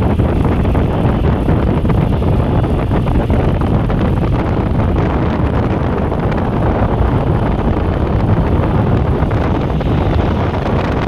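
Wind buffeting the microphone on a moving motorcycle: a loud, steady, low rumble of wind noise.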